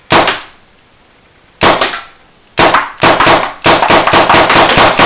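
Spyder MRX paintball marker firing Velcro balls, sharp pops with a short room echo: a single shot, a pair of shots, then a rapid string of shots about six a second.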